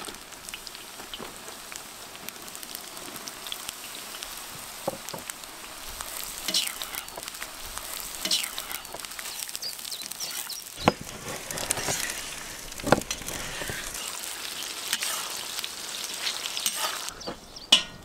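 Diced vegetables sizzling and crackling in hot oil in a cast-iron cauldron, a steady frying hiss. A metal skimmer scrapes through them a couple of times and knocks sharply against the pot twice about midway.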